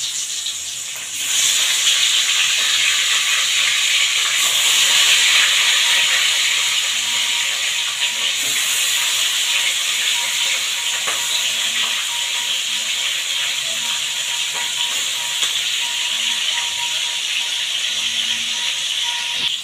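Pieces of small hilsa fish sizzling as they fry in hot oil in a steel kadai. The sizzle jumps up about a second in as the fish go into the oil, then holds steady and loud.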